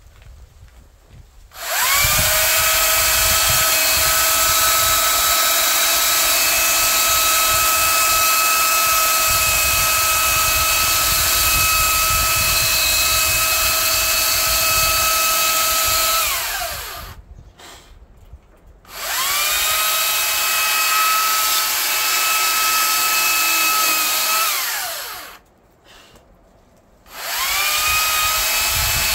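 Makita 40V cordless chainsaw cutting into a larch log in three runs: its electric motor whine winds up quickly, holds steady for about fourteen seconds, then winds down and stops. It runs again for about five seconds, and starts a third time near the end.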